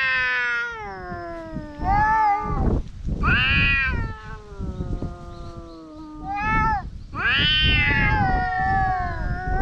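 Two stray cats yowling at each other in a standoff: a series of about five long, wavering wails that rise and fall, some overlapping, the threat calls that come before a cat fight.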